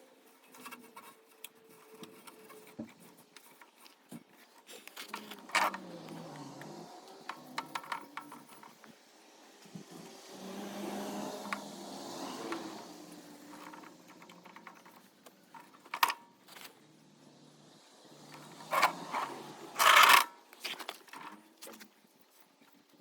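Scattered clinks, knocks and scrapes of objects being handled, with a few sharper knocks in the second half.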